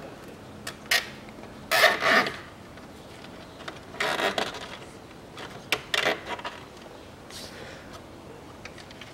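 Nylon zip tie being pulled tight through its ratchet lock around a hose: a few short rasping zips, about two, four and six seconds in, with light clicks of handling before them.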